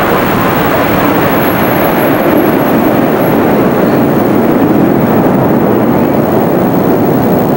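Jet aircraft flying overhead unseen, a loud steady rush of engine noise.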